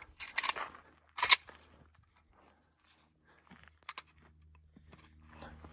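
Magazine and rifle handling between strings of fire: a few sharp plastic clicks and clacks, the loudest about a second in, then a couple of faint ticks, as the empty magazine is swapped for a polymer 5.56 AK magazine.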